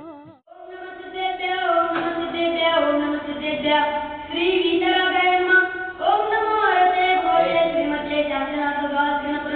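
A group of boys singing together in unison, holding long notes; the singing begins after a brief pause about half a second in.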